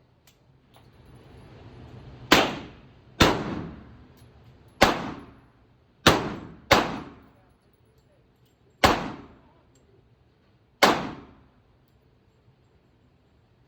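7.62x51 rifle firing seven shots at irregular intervals, each a sharp crack with a short echoing tail, with an eighth shot right at the end.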